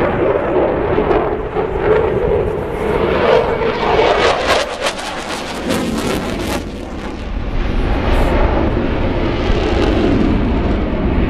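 Eurofighter Typhoon's twin jet engines, loud jet noise from the fighter flying its display, with a crackling stretch about halfway through and a deep rumble growing stronger in the second half.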